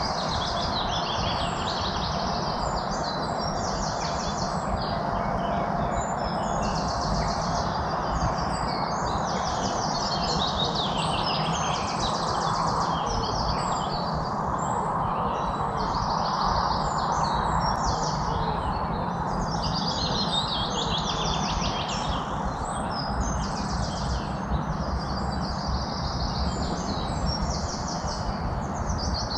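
Many songbirds chirping and trilling at once in a dense, continuous chorus, over a steady rushing background noise.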